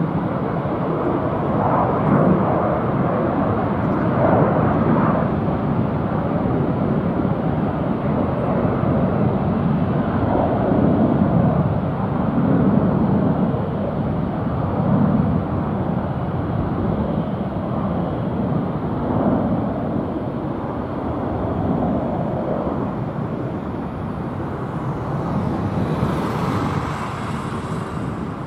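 Airbus A330-300 jet engines rumbling as the airliner climbs away after takeoff, a loud, deep, wavering roar that eases slightly near the end.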